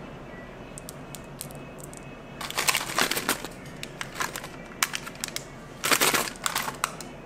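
Small plastic candy packet crinkling in the hand, in two loud bursts of crackle about two and a half and six seconds in, with light ticks in between.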